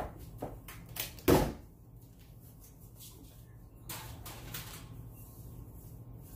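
A few knocks and clicks, the loudest a sharp thump about a second and a half in, then a short rustling noise near four seconds, over a steady low hum.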